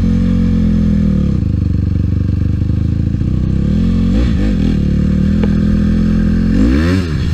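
Dirt bike engine running while riding, settling to a lower, rougher note about a second in. Two quick throttle blips come about four seconds in, and it revs up again near the end.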